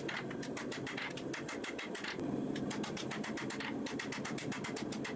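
Hand hammer striking a red-hot birdshot-clad steel knife blade on an anvil in rapid, evenly spaced blows, over a steady low hum.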